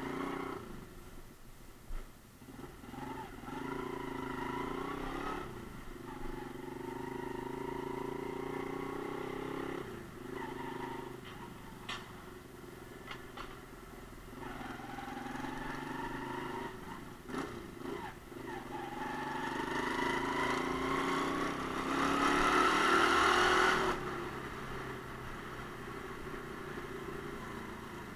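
Romet Ogar Caffe 125 motorcycle's 125 cc single-cylinder engine accelerating through the gears, its pitch rising in several pulls with a drop at each shift. The loudest, highest-revving pull comes near the end, then the throttle closes and it runs on more quietly.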